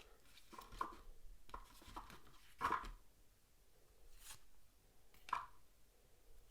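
Playing cards being handled: faint rustles and a string of soft taps as cards are slid and set down, the loudest tap a little before the middle.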